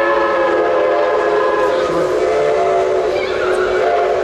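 Narrow-gauge steam locomotive's whistle blowing a long blast, several notes sounding together. The tones waver and blur about halfway through and come back steady near the end.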